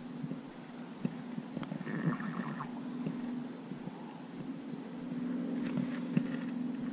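Fishing reel cranked slowly on a lure retrieve: a low, uneven whirr of the reel's gears with small clicks, louder in the second half.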